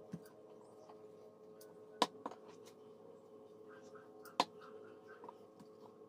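A few sharp clicks and knocks from handling food and dishes at a table, over a steady low hum. The two loudest knocks come about two seconds in and a little past four seconds in.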